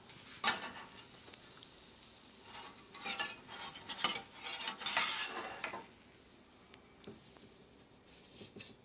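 Spatula scraping under a pancake in a hot frying pan, in several short scrapes, over a faint sizzle of the pan.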